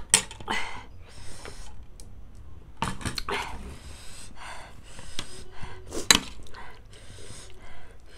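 Close-up eating sounds: chewing and breathy mouth noises while eating instant noodles, with a metal spoon or fork clinking sharply against a steel plate, once at the start and again about six seconds in.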